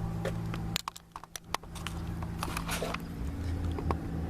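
Power window motor in a 1999 Chevy Tahoe's door running with a steady hum. It stops for under a second about a second in, amid several sharp clicks, then runs again.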